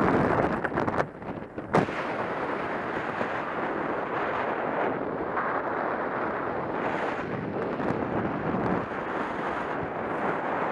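Wind rushing over a helmet camera's microphone under an open ram-air parachute canopy, a steady noisy buffeting. A single sharp click just under two seconds in.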